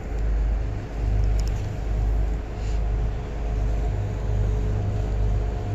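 Low, steady rumble of a river cruise boat under way, swelling and easing unevenly.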